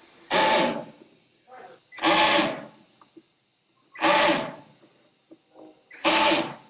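Cordless drill-driver running in four short bursts, about two seconds apart, turning the screws that ring a round inspection cover plate on an aircraft hull.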